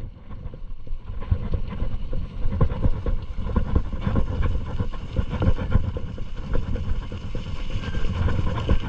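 Mountain bike rolling downhill over a rough, stony dirt track, heard from a camera on the handlebars: wind noise on the microphone with frequent, irregular knocks and rattles as the bike jolts over the bumps.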